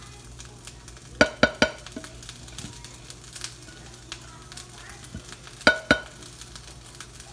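Sharp ringing clinks of a utensil and a stainless pot knocking against cookware while mashed potatoes are served: three quick clinks about a second in, two more near the end. Underneath, a pan sizzles faintly.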